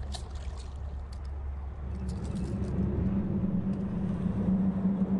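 Boat motor running with a steady low hum, a steadier, higher-pitched drone joining about two seconds in. A few splashes come in the first second from a hooked striped bass thrashing at the surface.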